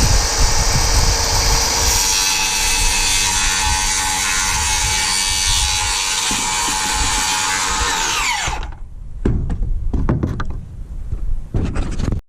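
Cordless power tool motor spinning up, running steadily at a constant pitch for about eight seconds, then winding down. A few scattered knocks and clatters follow.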